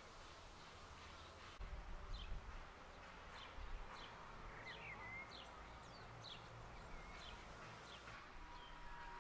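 Songbirds singing: a string of short, high chirps and whistles, several a second, over faint background hiss, with a few brief low rumbles about two seconds in.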